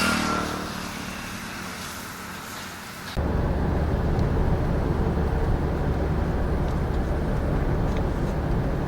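A motor vehicle with engine hum, loudest at the start and fading over the first three seconds; about three seconds in, an abrupt cut to a steady, low rumble of a moving vehicle.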